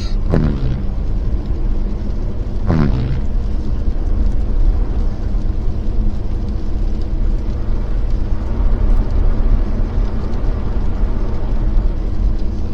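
Jeep Gladiator driving slowly on a snow-covered road, a steady low engine and road rumble. Near the start there are two brief squeaks about two and a half seconds apart, each sliding quickly down in pitch.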